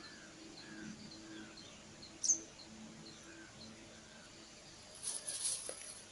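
Small birds chirping outdoors: short high chirps repeated every few tenths of a second, with one louder, sharp falling chirp a little over two seconds in. Near the end comes a brief burst of high hissing noise.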